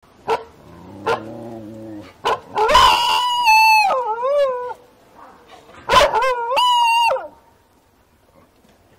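Dingo howling: two long, wavering, high howls, the first about three seconds in and the second about six seconds in, with a quieter, lower call and a few sharp clicks before them.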